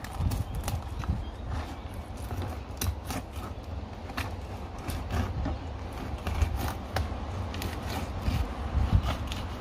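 Knife cutting a mullet fillet off along the backbone on a plastic cutting board: a run of irregular crisp clicks and scrapes as the blade works through the fish and taps the board, over a steady low rumble.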